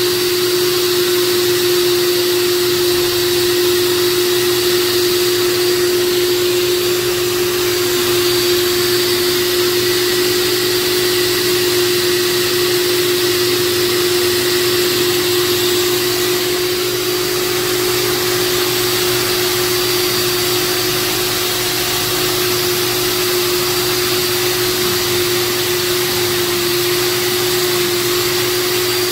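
Cuisinart BFP-703BC Smart Power Duet food processor running steadily at one unchanging pitch while shredding zucchini pushed down the feed tube: a constant motor hum over a hiss.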